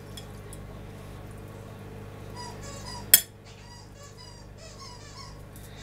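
A dog's squeaky toy squeaking in quick, high, repeated squeaks from about two seconds in. A single sharp clink of a utensil on a pan comes about three seconds in.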